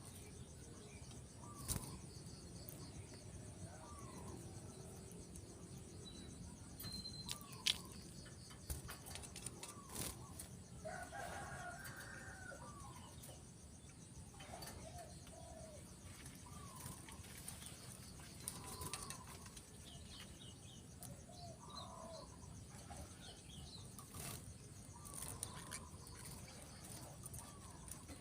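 Faint bird calls: short rising-and-falling notes repeated about every two seconds, with a few sharp clicks and flutters among them.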